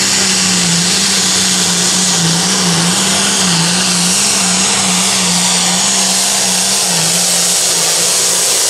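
Turbocharged diesel engine of an International Limited Pro Stock pulling tractor running flat out at high revs under the load of the pulling sled, its pitch held steady with several brief dips as the load bogs it down.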